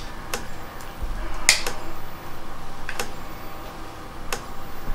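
Power Wizard PW18000 electric fence charger, freshly plugged in, ticking out its pulses: a sharp click about every second and a half, four in all, each click one high-voltage pulse, the sign that the charger is working.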